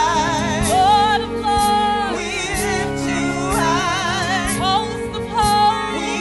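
Gospel praise team singing with vibrato into microphones, several voices together, over instrumental accompaniment with a regular beat.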